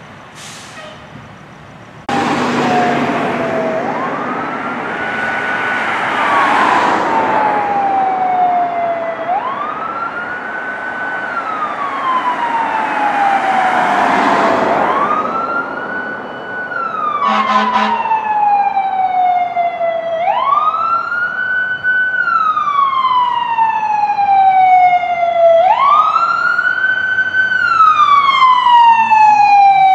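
Fire apparatus siren wailing, each cycle rising quickly, holding briefly and sliding slowly down, about every five seconds. A loud rumble runs under the first half, and a short horn blast sounds a little past the middle.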